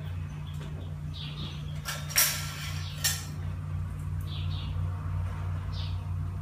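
Two sharp metallic clinks about two and three seconds in as a metal ladle is picked up from among the cookware, over a steady low hum. Small birds chirp briefly a few times in between.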